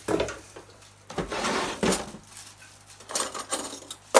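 A metal spoon clattering and scraping against dishes: a clatter at the start, a longer scrape a little over a second in, then a few quick clinks near the end.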